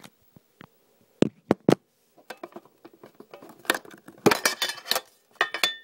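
A few sharp knocks as the camera is set down and handled, then clattering and scraping as a Fossil watch box is pried open, with a brief ringing note near the end.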